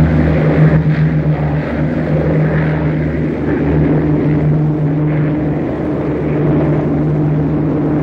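Piston engines of propeller aircraft in flight, a steady unbroken drone.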